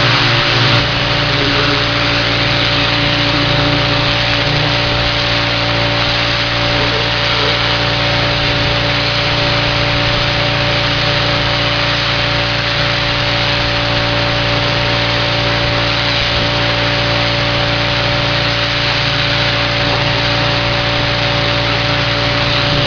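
Gas-engine pressure washer running steadily, with the hiss of its high-pressure water jet spraying against house siding.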